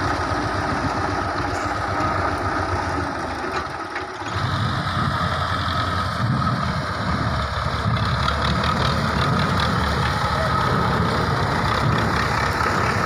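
Farm tractor engine running steadily, with a steady high whine over it. The sound dips briefly about four seconds in, then comes back with a heavier low rumble as the tractor drags the tipped-up trolley.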